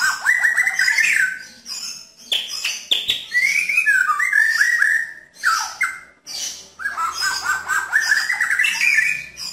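White-rumped shama (murai batu) singing in the 'nembak' style: three loud bursts of rapid, repeated, rough and clear notes. The first and last bursts climb in pitch, and the middle one falls.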